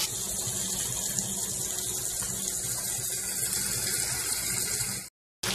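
Canned tuna chunks on sautéed onion and tomato sizzling in oil in a frying pan: a steady high hiss that cuts out for a moment near the end.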